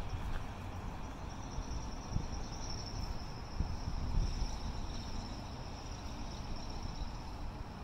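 Crickets trilling steadily in a high, even pitch, over a low outdoor rumble with a few soft thumps.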